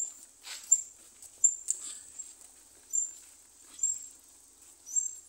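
Night insects chirping: a steady high trill with short high chirps every second or so, and a few faint clicks.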